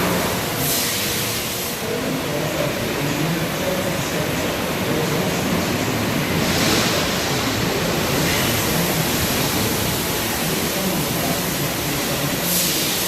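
Industrial machinery running steadily with a hum and a constant rush of noise, broken by three short hissing surges, about six seconds apart.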